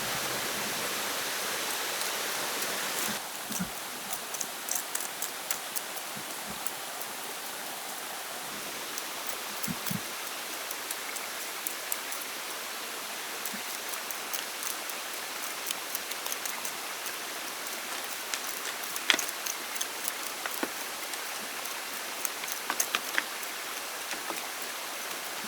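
Steady rushing water, with scattered light clicks and taps over it.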